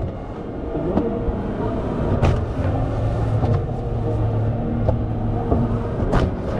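Motor of an X-ray baggage scanner's conveyor belt running as the bag with the camera passes through the tunnel: a steady low hum, with a couple of sharp knocks of the bag against the machine.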